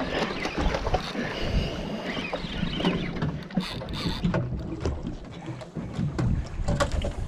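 Wind rushing over the microphone and sea and boat noise, with a spinning reel being cranked steadily as a big fish is reeled up.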